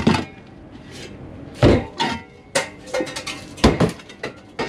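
Old steel shovels clanking and knocking against each other and other metal as they are pulled out of a stacked pile: a string of irregular sharp metal clanks.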